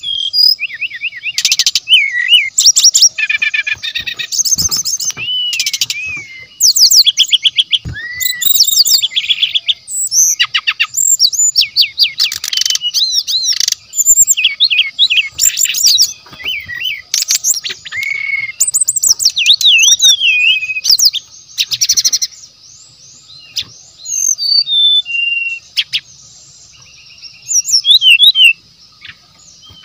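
Brown-chested jungle flycatcher singing a fast, varied song of rapid trills, chirps and short whistles, in bursts broken by a few short pauses.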